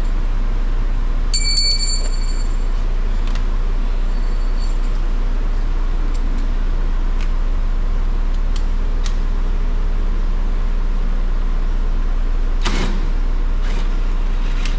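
Steady low hum throughout, with light metallic clinks and clicks from a screwdriver taking out the screws in a car door. There is a short high metallic ring about a second and a half in, and a louder knock near the end.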